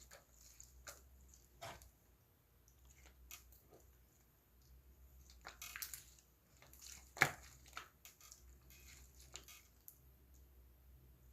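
Faint, irregular clicks and brief rustling handling noises, with one sharper knock about seven seconds in.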